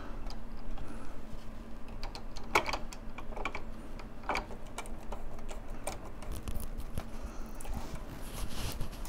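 Hard plastic parts of a Fanhome KITT scale model clicking and tapping as they are handled and pressed together: an irregular string of small clicks, with a few sharper ones about two and a half and four and a half seconds in.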